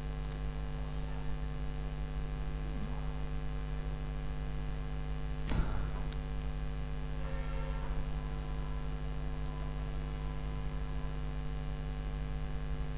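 Steady electrical mains hum with several overtones and no speech, with a single faint click about five and a half seconds in.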